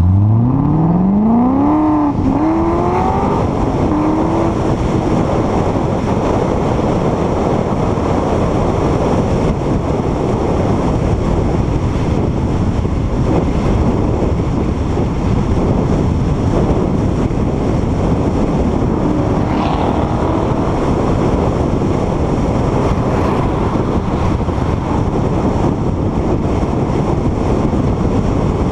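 Corvette V8 engine accelerating hard from low speed, its pitch climbing steeply, breaking once at an upshift about two seconds in and climbing again. It then settles into cruising, with steady wind and road rush over the hood-mounted microphone, and the engine briefly rises again twice, about two-thirds of the way through and at the very end.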